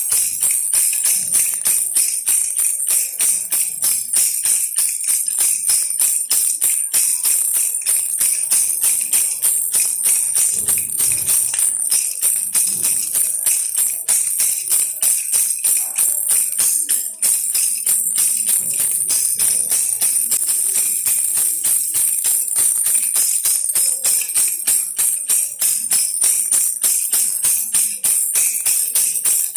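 Baby rattle toy shaken without pause, a fast, even jingling of many small strikes.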